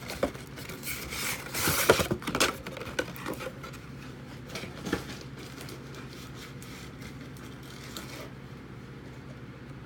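Cardboard trading-card box being opened and its contents handled: a cluster of rustling and tearing in the first three seconds, a single click about five seconds in, then only faint room hum.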